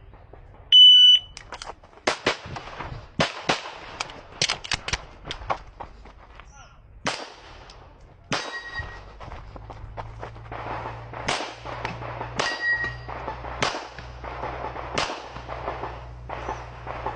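A shot timer's electronic start beep, then a string of pistol shots fired at an uneven pace, several in quick pairs. A couple of the hits leave steel targets ringing briefly.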